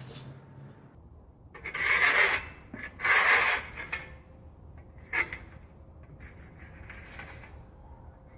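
Trowel rubbing and scraping over a PVC liner as it is pressed down onto concrete. There are two loud strokes about two and three seconds in, a short one about five seconds in, then fainter rubbing.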